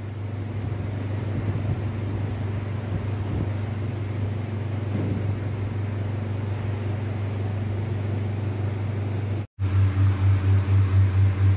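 Steady low machine hum with a faint even hiss. Near the end it cuts out for an instant and comes back louder, pulsing about two or three times a second.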